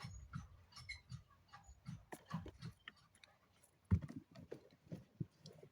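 An irregular string of small clicks and knocks, with one louder knock about four seconds in.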